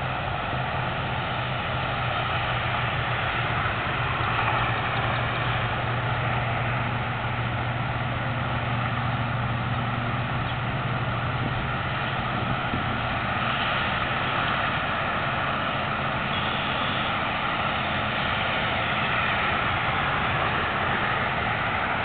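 Steady low motor drone under a constant hiss.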